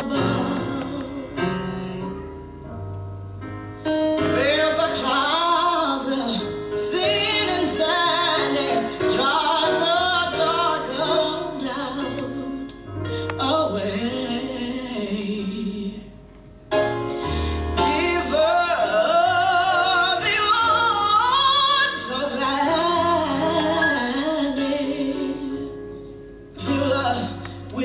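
A woman singing a worship song with vibrato over instrumental accompaniment and a steady bass line, with brief lulls between phrases.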